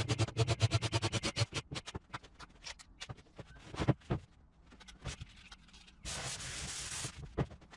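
A fast, even run of clicking rattles for about the first second and a half, then a single knock a few seconds in. Near the end a wooden board scrapes for about a second as it slides across a table top, followed by one more knock.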